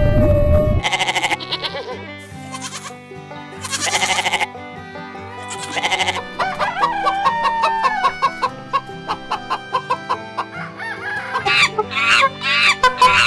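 Chickens calling, a rooster crowing and hens clucking, in several separate calls with a quick run of clucks near the end, over steady background music.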